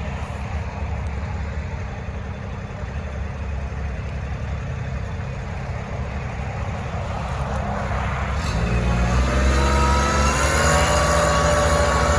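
Steady low rumble, then about two-thirds of the way in a motor vehicle's engine comes up, growing louder and rising in pitch.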